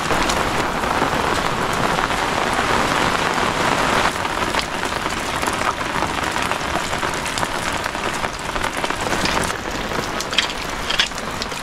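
Steady rainfall, a little louder for the first four seconds, with a few short sharp sounds near the end.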